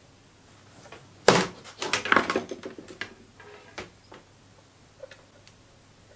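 A sharp snip from side cutters cutting a short piece of insulated wire, followed by a run of light clicks and clatter as small parts and tools are handled on the lathe's metal headstock, then a few faint ticks.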